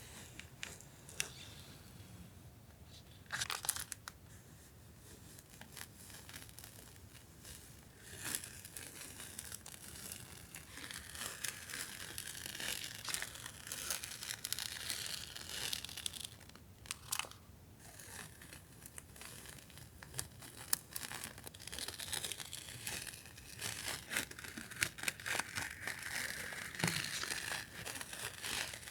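Crinkling and rustling of paper and plastic stationery packaging being handled, with scattered light clicks and taps; it grows busier and louder about eight seconds in.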